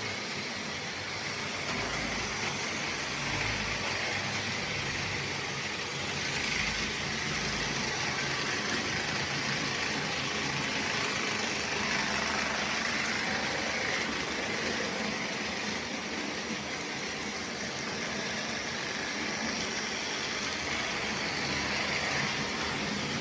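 Märklin H0 model train running on the layout's track: a steady whir with rolling rail noise.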